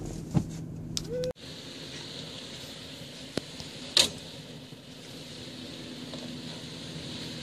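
Toyota 4Runner's engine running low and steady as it crawls over rocks, heard faintly under a steady outdoor hiss. A sharp click comes a little past three seconds in, and a short, louder scrape-like noise about four seconds in. In the first second or so a closer engine and a thump are heard, and they cut off suddenly.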